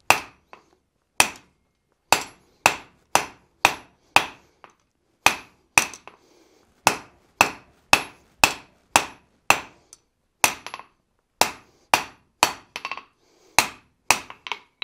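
Hand hammer striking a red-hot 1075 steel bar on an anvil: sharp ringing blows, about two a second, in runs with brief pauses. The blows thicken and narrow the bar from 1/4 by 1.5 inch toward 5/16 by 1 inch, for an axe's steel cutting edge.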